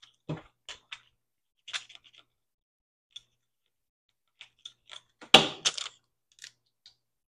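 Clear plastic transfer tape and an acrylic keychain blank crinkling and clicking as they are handled and rubbed with a plastic scraper: a string of short, scattered clicks, with one louder knock about five seconds in.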